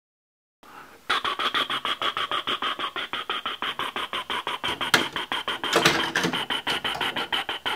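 Helicopter in flight: fast, even rotor-blade chopping over a steady high whine, starting about a second in.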